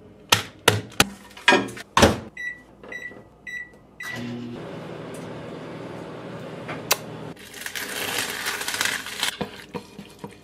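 Microwave oven: a run of sharp clicks, then about four short high beeps, then the oven running with a steady hum for about three seconds. A louder hissing stretch follows around eight seconds in.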